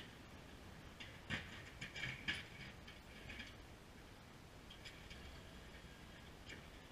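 Fisher HT snowplow blade on a Ford F-150 pushing snow across pavement: faint steel scraping with a few sharp clanks, the loudest about a second and two seconds in.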